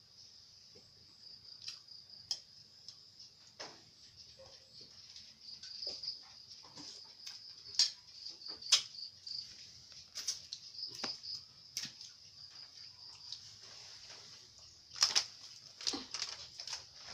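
Steady high chirring of crickets, with scattered sharp clicks and clinks of spoons and dishes; a few louder clinks come about halfway through and a cluster near the end.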